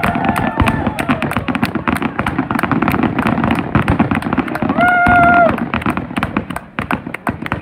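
Aerial fireworks bursting in quick succession, a dense run of bangs and crackles with no let-up, and a short held tone about five seconds in.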